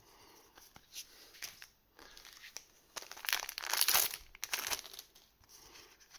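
Plastic wrapper of a trading-card booster pack crinkling and tearing as it is opened and handled, in a few irregular rustling bursts, the loudest about three to four seconds in.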